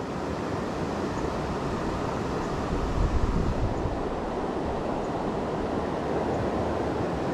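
Steady rush of a flooded creek's fast current.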